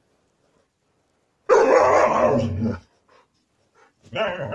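A dog giving two loud cries: one lasting just over a second about a second and a half in, and another starting near the end.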